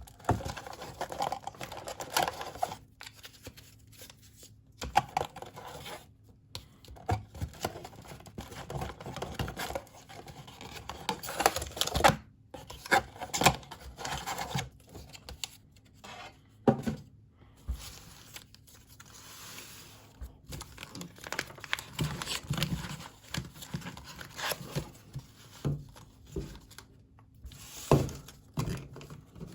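A trading card box being opened by hand: cardboard and packaging tearing and crinkling, with card packs being handled and knocking together in irregular bursts.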